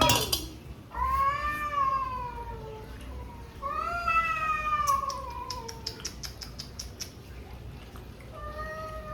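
Cats meowing: long drawn-out meows that slide down in pitch, about four of them, with a loud one at the very start. A run of quick faint ticks comes in the middle.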